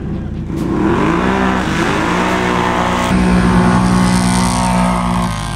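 Sport ATV engine revving hard on a dirt drag launch. The pitch climbs, dips at a gear change, climbs again and holds at high revs, then falls away near the end.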